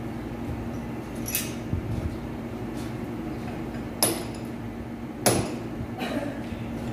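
Steady hum of a metal lathe with a constant low tone. Over it come four sharp metal knocks and clanks as the machinist handles the lathe; the loudest comes a little after five seconds in.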